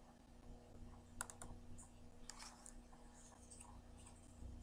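Near silence: a faint steady hum with a few soft clicks and rustles of a hardcover picture book being handled close to the microphone.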